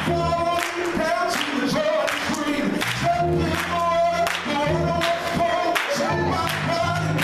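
Small gospel choir singing, a man leading on a microphone, with hand clapping on the beat at about two claps a second.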